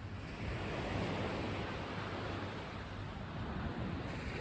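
Sea surf washing onto the beach as a steady hiss, with wind rumbling on the microphone.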